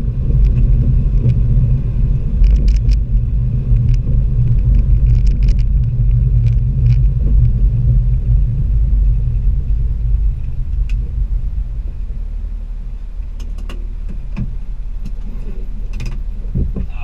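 Classic Austin Mini's A-series four-cylinder engine and road rumble heard from inside the small cabin while driving slowly, with scattered rattles and clicks. About 12 seconds in, the rumble drops and settles to a steady, quieter level as the car comes to a stop and idles.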